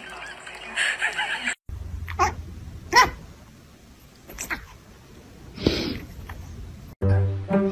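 A pet's short, sharp calls, three of them a second or so apart, then a longer breathy sound.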